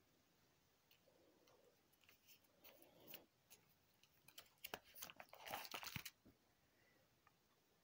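Faint crinkling and clicking of a plastic nine-pocket card binder page being handled and turned, loudest about five to six seconds in.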